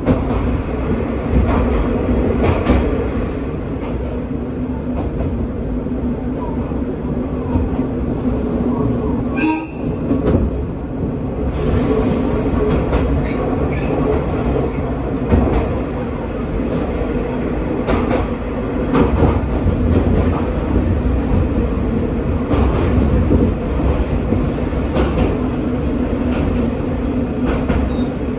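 Diesel railcar running through a tunnel, heard from inside the cab: a steady engine drone and wheel rumble, with occasional clicks as the wheels pass over rail joints.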